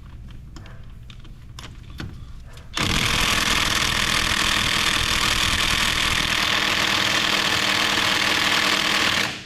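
Impact wrench hammering on a wheel lug nut for about six seconds, starting suddenly about three seconds in after a few light clicks, then stopping abruptly; the nut does not break loose.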